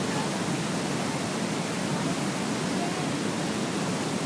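Large waterfall running: a steady, unbroken rush of falling water.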